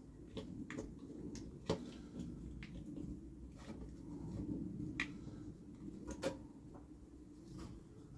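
Scattered small clicks and knocks of parts and tools being handled, with a few sharper knocks about two, five and six seconds in, over a low steady hum.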